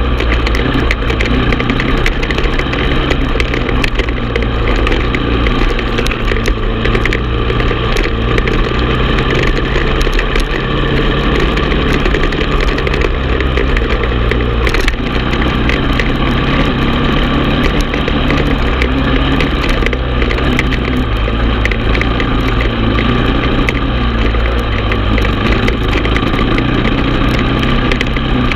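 Honda TRX450 ATV's single-cylinder four-stroke engine running under way on a dirt trail, its pitch shifting a little as the throttle changes.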